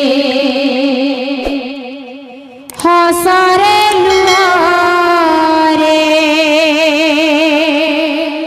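A woman singing a kirtan through a microphone, holding long vowels with wide vibrato and no drums. The first held note fades out about two seconds in; a new, higher phrase begins just under three seconds in, steps up in pitch, and is held until it fades near the end.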